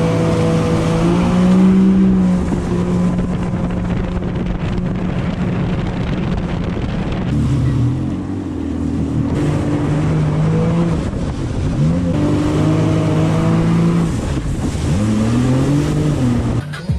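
Jet ski engine running at speed with water and wind rushing past. It runs steadily at first; from about halfway its pitch drops and climbs again several times as the throttle is eased off and opened up.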